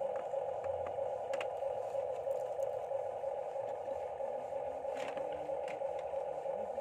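Steady, unchanging hum of a toy RC construction machine's small electric motor, with a few faint clicks.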